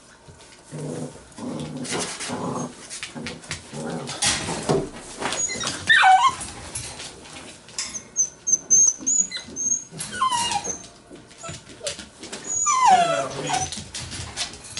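Eight-week-old puppies playing and scuffling, with several high whimpers and squeals that slide down in pitch, about six, ten and thirteen seconds in, over knocks and rustling.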